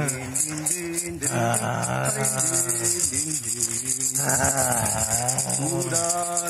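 Small round hand rattle shaken quickly and steadily, under a man's long, wavering moans.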